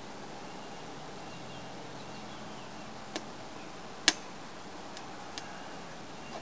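Three sharp clicks over a steady hiss while newspaper is being lit under a metal chimney charcoal starter; the loudest click comes about four seconds in.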